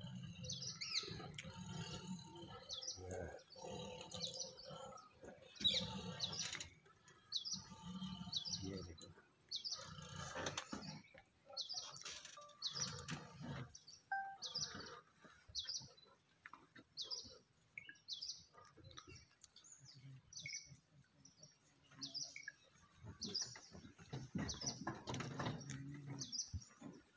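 A bird calling the same short, high chirp over and over, about once a second, with irregular lower sounds in the first half and again near the end.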